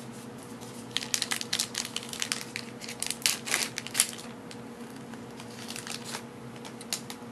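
Paper trading cards being flipped and slid against one another in the hand: a quick run of crisp clicks and rustles for about three seconds, then a few more near the end, over a steady low hum.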